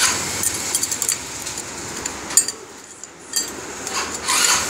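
Metal engine parts clinking and knocking against a scooter engine's cast crankcase as they are handled and fitted, in irregular light clicks with one sharper knock a little past the middle.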